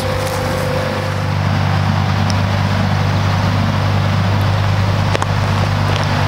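John Deere 2032R compact tractor's three-cylinder diesel engine running steadily at a constant speed, a deep even hum.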